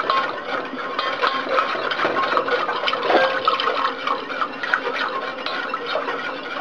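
Wire whisk scraping and stirring in a stainless steel saucepan as milk is poured into a butter-and-flour roux, the liquid sloshing; it is kept moving so the roux does not go lumpy.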